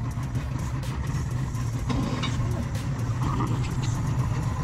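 Yamaha 200 outboard motors running with a steady low hum, just after starting up.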